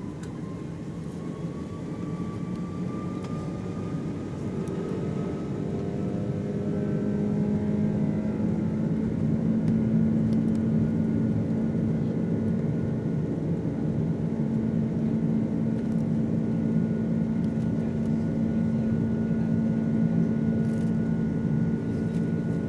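Airbus A330 jet engines spooling up to takeoff thrust, heard from inside the cabin during the takeoff roll. A rising whine climbs in pitch and loudness over the first several seconds, then settles into steady loud engine noise with a deep hum.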